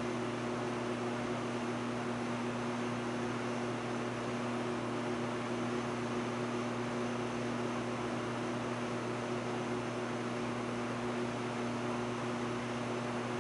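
Steady whir and hiss of a Ziehm Vista C-arm system's cooling fans and electronics running during its boot-up self-checks, with a constant low electrical hum under it.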